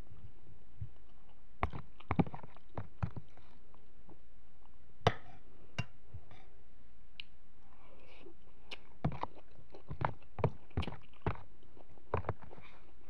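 Eating sounds: a metal spoon clicking and scraping against a glass bowl, with chewing, in short, sharp, irregular clicks a second or so apart.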